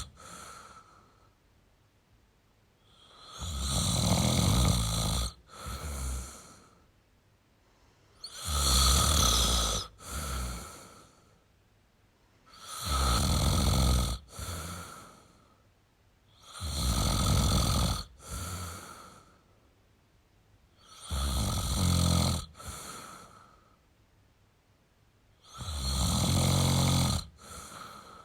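A person snoring in a steady rhythm, six loud rasping snores about every four and a half seconds, each followed by a shorter, softer breath.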